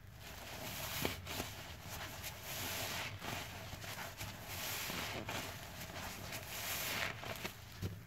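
A foam-soaked sponge squeezed in soapy water: repeated waves of wet squelching and crackling suds, each swelling and fading over a second or so, with a few sharp little pops.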